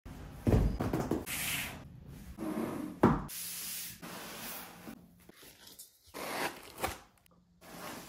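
Cardboard box being handled and unpacked: two heavy thumps, about half a second and three seconds in, as the box is set down on a wooden table, then the scraping and rustling of the cardboard lid and packaging being opened.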